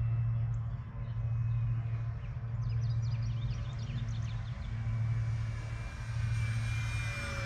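Electric motor and propeller whine of an E-flite P-51D Mustang RC plane flying past, its pitch falling near the end, over a low steady hum.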